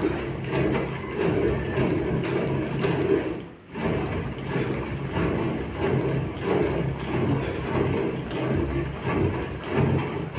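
Electric drill running under load, boring to enlarge a lock hole in a wooden door, with a brief stop about three and a half seconds in.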